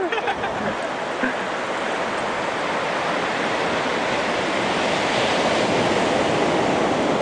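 Ocean surf breaking and washing up the sand: a steady rushing noise that swells slightly about halfway through.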